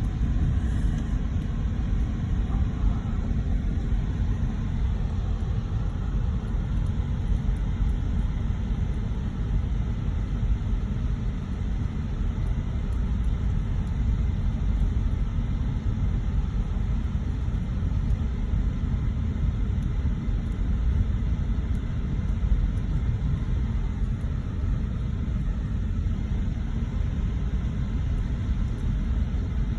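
Car driving, a steady low rumble.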